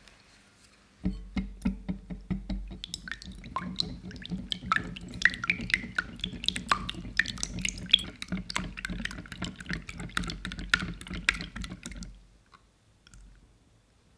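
Wire whisk beating eggs and yolks in a glass bowl: rapid, irregular clicking of the wires against the glass over wet sloshing of the liquid egg. It starts about a second in and stops about twelve seconds in.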